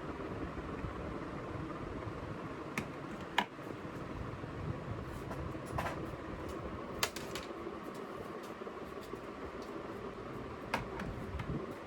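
Workshop noise: a steady mechanical hum with a handful of sharp clicks and taps scattered through it, like tools or parts being handled.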